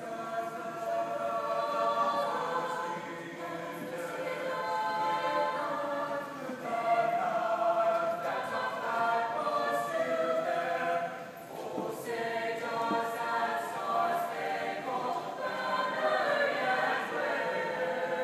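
High school choir singing held chords in long phrases, with a brief breath between phrases about eleven seconds in.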